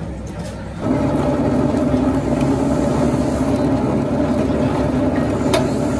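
A motor vehicle's engine running, stepping up about a second in to a louder, steady hum that holds on.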